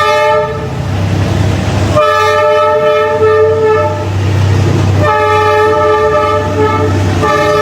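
Train horn sounding in long blasts, a chord of several steady notes, each blast starting again about every two to three seconds over a low rumble.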